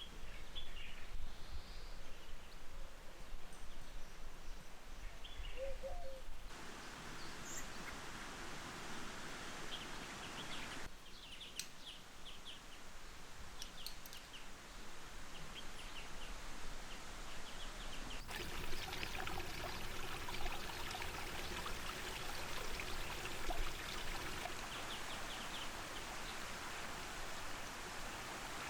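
Outdoor nature ambience in several abruptly changing takes: a steady rush of flowing stream water with small birds chirping at intervals.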